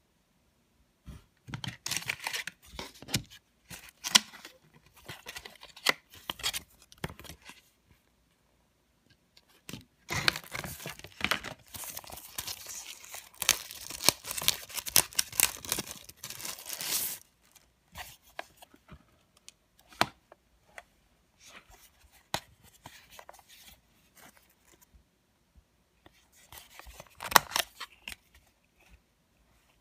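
Thin clear CPE plastic packaging bag crinkling and rustling as it is handled and pulled open, in irregular bursts, with the densest, loudest stretch from about ten to seventeen seconds in. Scattered sharp clicks follow, and a short loud clatter comes near the end as the small plastic keyboard is handled.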